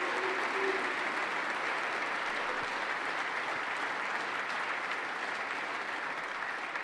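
Assembled legislators applauding steadily.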